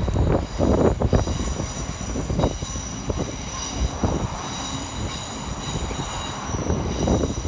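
Passenger train running across a long steel girder rail bridge: a steady rumble with several steady high-pitched tones ringing above it.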